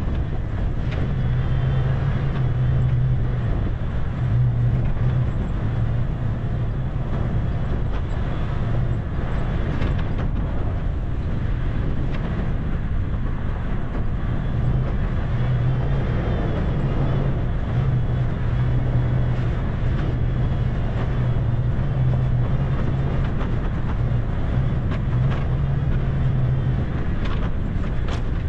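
Toyota FJ Cruiser's 4.0-litre V6 running at low speed in four-wheel drive on a snowy trail: a steady low drone that swells and eases, over continuous rumbling vehicle noise.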